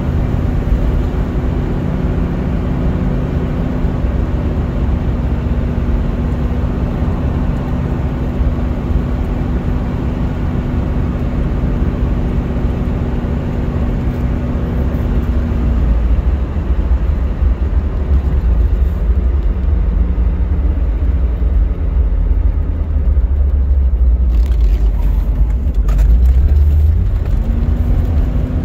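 1973 Mercedes-Benz 450SL's V8 engine running at a steady road speed, heard from inside the cabin over steady tyre and road rumble. About halfway through, the engine's steady note drops away under a heavier low road rumble, with a few light clicks. The note comes back, rising slightly, near the end.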